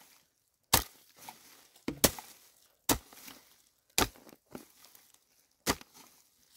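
Chopping: about six sharp strikes at uneven spacing, roughly one a second, two of them close together about two seconds in.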